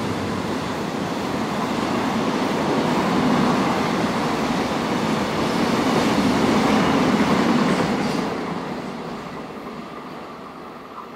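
Freight train wagons rolling past on the track, a steady rumble of wheels on rail that fades away from about eight seconds in as the last cars recede.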